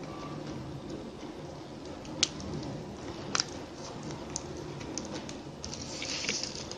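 Plastic weaving tape rustling and clicking as strips are pulled and tucked around a basket handle, with two sharp clicks about two and three and a half seconds in.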